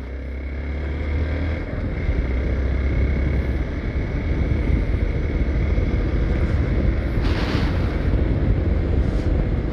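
Hero Xpulse 200 4V motorcycle's single-cylinder engine running as the bike is ridden, getting louder over the first few seconds as it picks up speed, with wind rumbling on the microphone.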